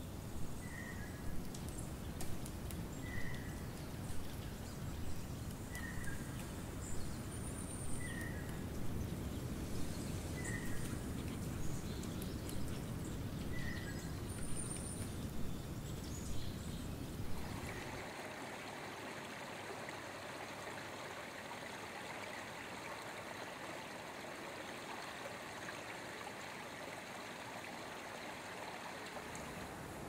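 Outdoor winter ambience: a low steady rumble with a short high chirp repeating about every second and a half. About eighteen seconds in it changes to a steadier, brighter hiss.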